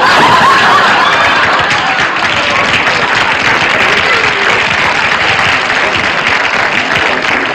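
Studio audience applauding: dense, steady clapping that eases slightly toward the end.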